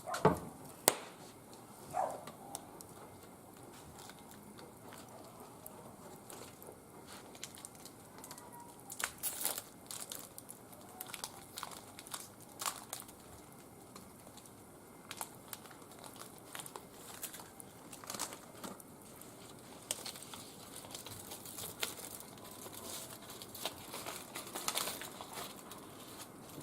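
Small wood fire crackling in a barbecue grill, with irregular sharp pops and snaps scattered throughout.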